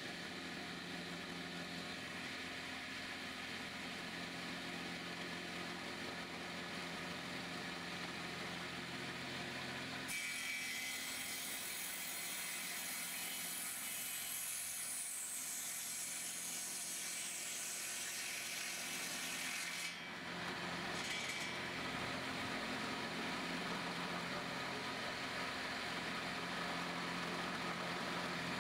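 Circular saw running with a steady motor hum, ripping a board lengthwise. A louder, hissing cutting sound sets in about ten seconds in, eases briefly near twenty seconds, then the cut carries on.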